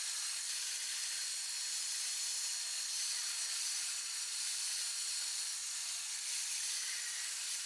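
Steady high hiss, even in level, with no motor hum and no cutting sound in it.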